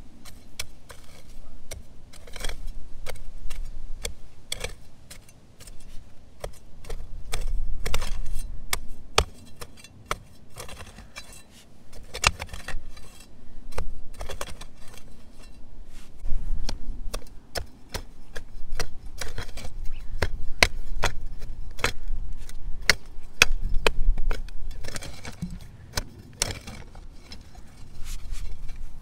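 Azada trenching hoe chopping repeatedly into hard clay at the bottom of a narrow trench: irregular sharp strikes, often several a second, with loosened clods knocking and crumbling.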